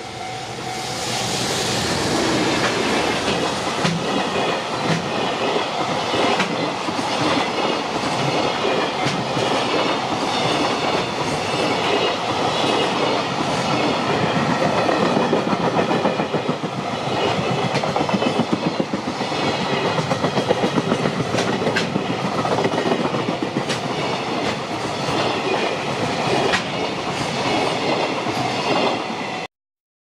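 JR Freight EF210 electric locomotive hauling a container freight train close past: a steady rumble that swells over the first two seconds as the locomotive arrives, then the wagons' wheels clacking over the rail joints in a run of regular clicks. It cuts off abruptly near the end.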